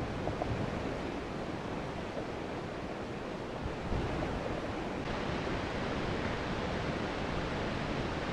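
Wind buffeting the camera microphone: a steady rushing noise with uneven low rumbling gusts and a small thump about four seconds in.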